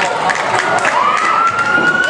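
Wrestling crowd shouting, with one spectator's long, high-pitched yell held steady for about a second and a half, starting about a second in.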